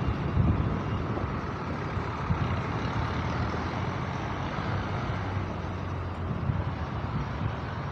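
Street traffic: engines of passing vehicles, including a small truck and a diesel jeepney, making a steady low rumble with a few louder swells near the start.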